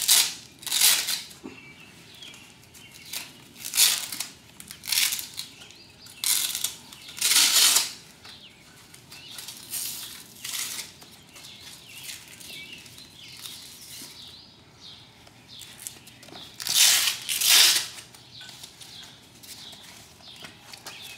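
Velcro straps on a paramotor cage being ripped open, one after another: short tearing rasps, often two close together, with pauses of handling between.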